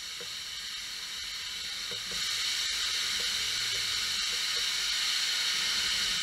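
Steam locomotive letting off steam: a steady hiss that grows louder about two seconds in and holds.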